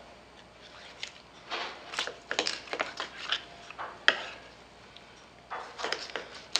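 Kitchen knife cutting up a raw whole chicken on a plastic cutting board: irregular clicks, taps and scrapes of the blade through the meat and against the board, with one sharp click about four seconds in.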